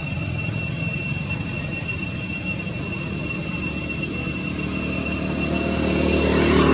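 Steady outdoor background drone: a constant high-pitched whine over a low rumble, swelling a little near the end.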